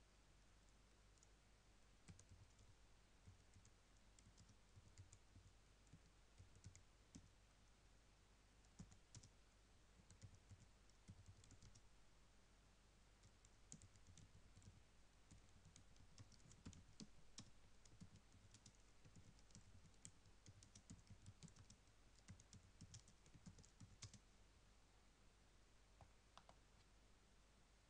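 Faint typing on a computer keyboard: irregular runs of keystroke clicks over a low, steady background hum.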